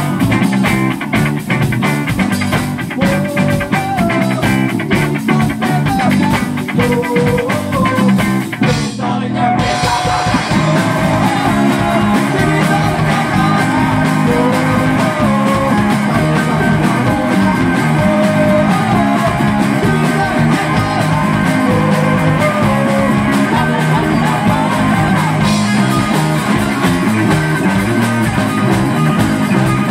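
Rock band playing live: a male singer with electric guitar and drums, loud. The drums and cymbals drop out briefly about nine seconds in, then the full band comes back in.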